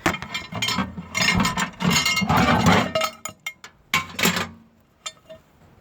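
Clattering and clinking of hard objects being handled, with a quick run of small sharp clicks about three seconds in.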